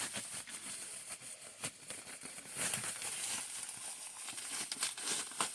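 Bubble wrap and plastic packaging crinkling and rustling in irregular crackles as it is handled and pulled off.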